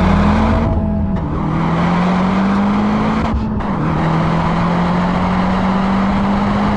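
Audi TT 1.8T turbo four-cylinder engine pulling under acceleration, its pitch climbing slowly and then dropping at two upshifts, one about a second in and one just past the middle, with steady road noise underneath.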